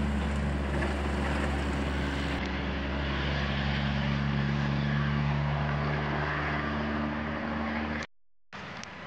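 Diesel engine of a loaded log truck running steadily as it drives along a road, with a low engine hum and tyre noise. The sound cuts off abruptly about eight seconds in.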